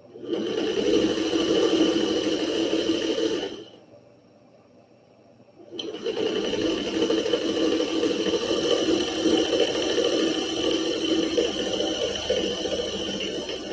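Vintage sewing machine running at a steady speed while stitching a long fabric strip set: a steady hum with a high whine over it, in two runs with a pause of about two seconds between them.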